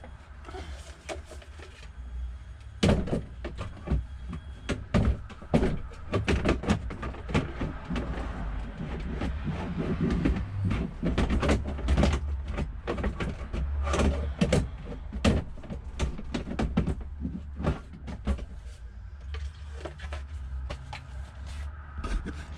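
Repeated knocks and clatter of power tools being set into and pulled out of a Packout plastic tool drawer, with the drawer sliding and bumping shut. The knocks come thickly for most of the stretch and thin out near the end.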